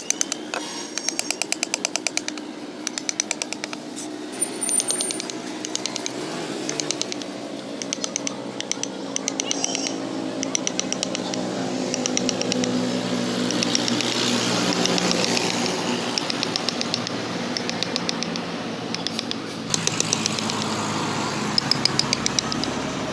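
Quick runs of light, sharp taps, typical of a mallet striking a carving chisel as it cuts into wood, over a steady low hum.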